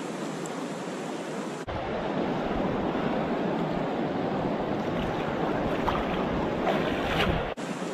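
Steady rushing of river water over stones. From about two seconds in it is heard close up with wind buffeting the microphone, and there are a few brief splashes near the end.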